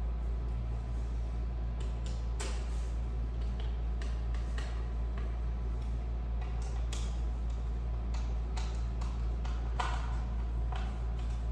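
Irregular light clicks and taps of ceiling-fan blade brackets and small screws being handled and fastened, over a steady low hum that cuts off abruptly at the end.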